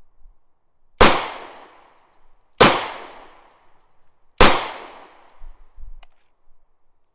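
Three single gunshots, about a second and a half to two seconds apart, each sharp crack trailing off in an echoing tail.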